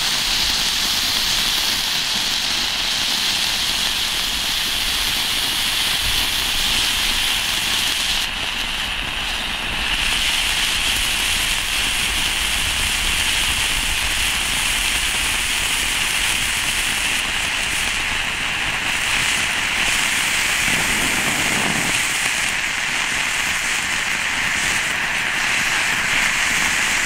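Four Bengal fire fountains (Pyroland Elfenfeuer Regenbogen Edition) burning together with a steady hiss.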